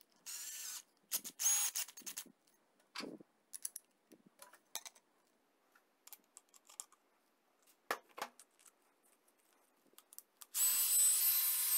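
Rokodil cordless drill/driver run briefly twice as its keyless chuck is tightened on a threaded arbor, then small metallic clicks and taps as a cutting disc is fitted with a nut and washer. Near the end the drill spins the disc up for about a second with a high whine, the loudest sound.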